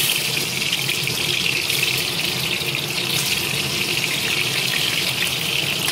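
Sliced sweet potato sizzling in hot oil and melted sugar in a wok. The sizzle starts suddenly as the slices go in and then runs on evenly with fine crackling, over a steady low hum.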